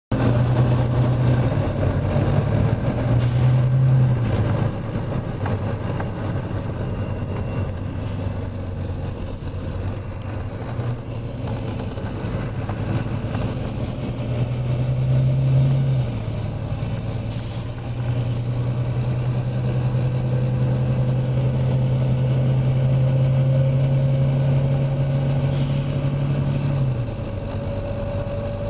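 Volvo B9TL double-decker bus's diesel engine running under load; its note rises about halfway through, holds steady, then drops near the end. Three short air hisses from the bus's air system cut in along the way.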